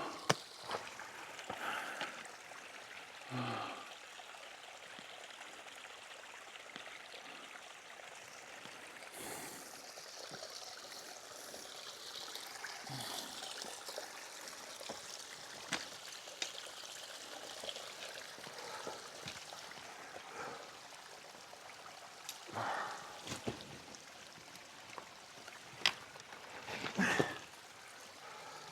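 A stream running with a steady rushing trickle, broken now and then by short scuffs and knocks.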